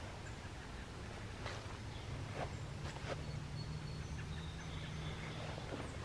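Outdoor ambience: a steady low hum with faint bird chirps in the middle and a few soft crunching steps on gravel.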